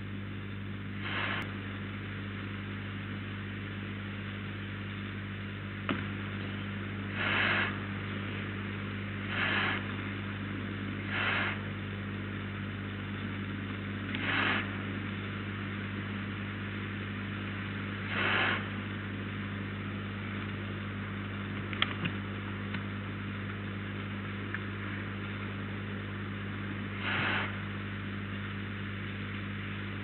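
Steady electrical mains hum with hiss from the nest-box camera's audio. Over it, seven short hissing screeches of about half a second each come at irregular gaps, typical of young barn owls' begging calls.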